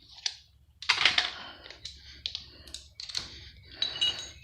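Loose steel bolts clicking and clinking against each other as they are handled, in a run of irregular clicks with a faint metallic ring near the end.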